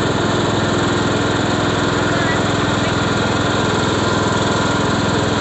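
Riding lawn mower's engine running at a steady speed as the mower is driven along, a continuous even drone with no change in pitch.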